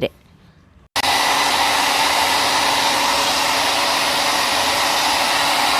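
1000-watt hand-held hair dryer running steadily with an even rush of air over a faint motor hum, very noisy. It starts suddenly about a second in.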